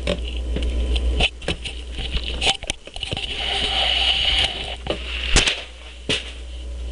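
Handling noise from a small camera being moved about: rubbing and scraping on the microphone with several sharp knocks, over a low hum that comes and goes.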